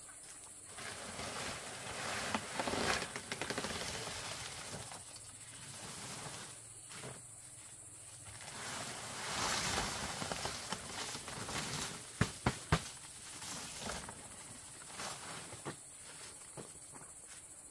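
Large palm fronds rustling and swishing as they are pulled and handled, with a few sharp cracks about twelve seconds in.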